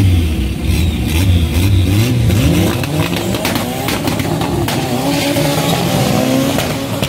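Two hatchback drag cars at the start line, engines revving, then launching and accelerating hard away. The engine pitch climbs in several rising sweeps as they shift up through the gears.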